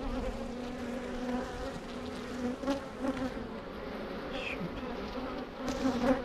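Honeybees buzzing in a steady hum from a hive packed full of bees, with a few faint clicks.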